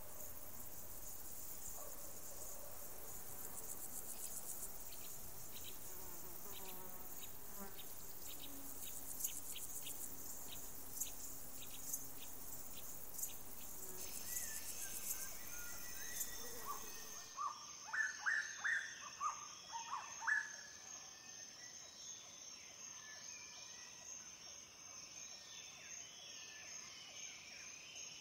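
High insect-like buzzing with regular short chirps, like crickets. About two-thirds of the way in the sound changes to a steady high tone, and a quick run of loud, short bird-like calls is the loudest part.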